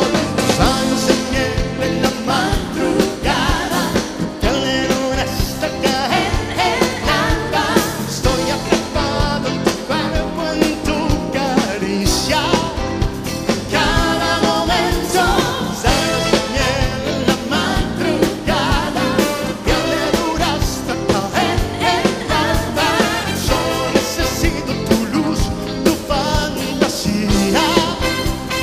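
Live band music with a trumpet section, congas and drums under a male lead singer, with a steady beat.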